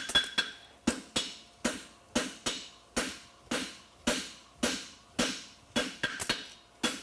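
Farrier's hammer striking a steel horseshoe on the anvil in a steady rhythm of about two blows a second, each with a short ring, flattening the shoe's branch.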